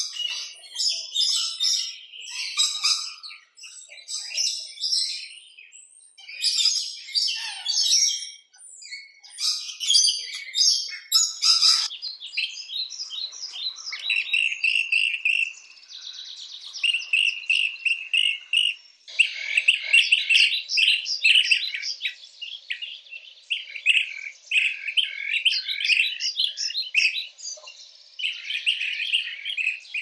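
Wild birds calling: bursts of quick high chirps through the first twelve seconds or so, then repeated short rolling trills for the rest.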